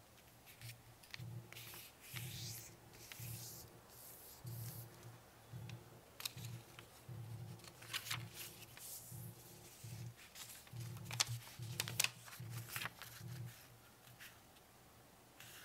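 Square sheet of origami paper rustling and crinkling as it is unfolded, refolded and pressed into creases, with two sharper crackles in the second half. Soft background music with low notes plays underneath.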